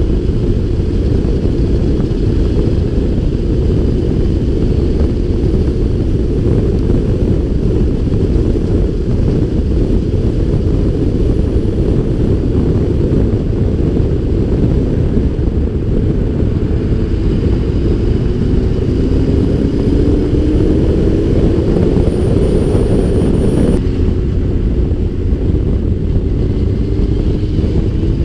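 Heavy wind rushing over the microphone of a motorcycle on the move, with a Yamaha FZS1000's inline-four engine running underneath. In the second half the engine note climbs in pitch for several seconds, then drops off sharply.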